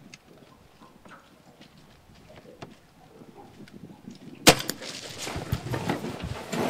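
A single sharp crack about four and a half seconds in, a tranquilliser dart gun fired at the bear from the boat, followed by irregular knocking and handling noise.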